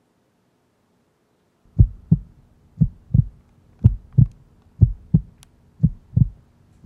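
Heartbeat sound: deep double thumps, lub-dub, about one pair a second, starting about two seconds in.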